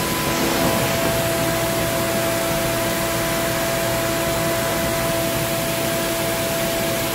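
Fanuc Robodrill Alpha D21MiA5 CNC drill and tap center running under power: a steady hiss with a steady whine over it.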